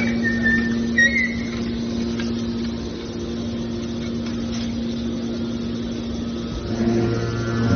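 Hydraulic metal baler's power unit running with a steady hum, a brief high squeal about a second in. Near the end a deeper hum joins and the level rises.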